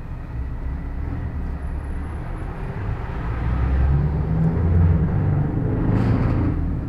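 Scania R620's V8 diesel engine pulling a truck away from a standstill, heard from inside the cab. Its low drone grows louder from about three seconds in as the truck gathers speed, then eases slightly near the end.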